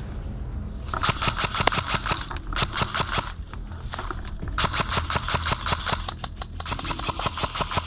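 Electric airsoft rifle firing on full auto in four bursts of rapid clicks, with one sharper crack in the first burst.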